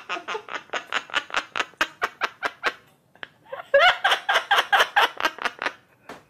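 Rhythmic laughter, a quick run of 'ha-ha-ha' pulses about five a second, breaking off around the middle and starting again louder.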